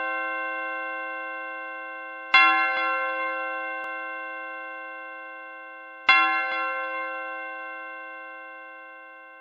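A bell struck twice, about two seconds in and again about six seconds in. Each stroke rings on with many steady overtones and fades slowly, and the ringing of a stroke just before fades at the start.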